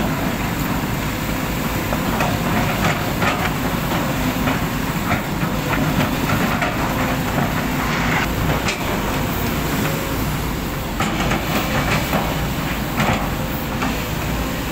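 Hydraulic excavators' diesel engines running steadily, with irregular clanks and scrapes of steel buckets working a pile of rock and wet clay.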